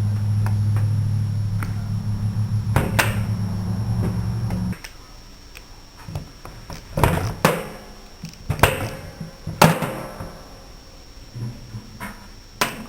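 A small electric motor hums steadily for about five seconds and cuts off suddenly. Then come several sharp metallic clinks and knocks, each ringing briefly, as starter-motor parts are handled.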